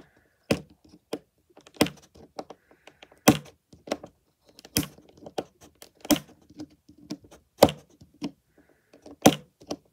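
Fingernail picking at the plastic wrap on a hard plastic capsule ball, trying to peel it off. A sharp click comes about every one and a half seconds, with fainter ticks between.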